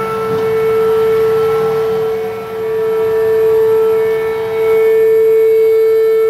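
Outdoor tornado warning siren sounding a steady, loud, held tone, sounding a tornado warning. The tone dips in loudness about two and a half seconds in and swells back up from about four and a half seconds.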